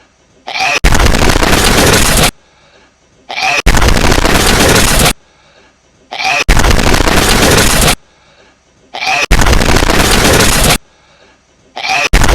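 Hedgehog sneeze on a loop: each time a brief small rising sound is followed by a sudden, very loud, clipped blast of about a second and a half. It repeats about every three seconds, four times in full, with a fifth starting near the end.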